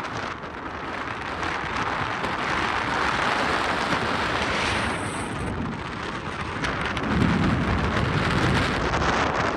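Strong wind rushing and buffeting the microphone, with a heavier, low-pitched gust about seven seconds in.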